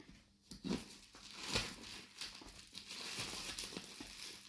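Bubble-wrap and plastic packaging crinkling and rustling as a wired keyboard is pulled out of its box, with a few soft knocks about a second and a half in.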